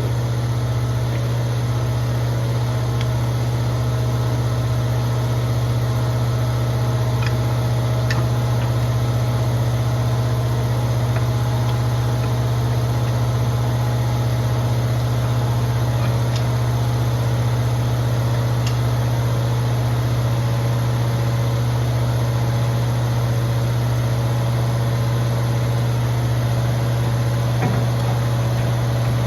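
Steady, unchanging low machine hum, with a few faint clicks from parts being handled.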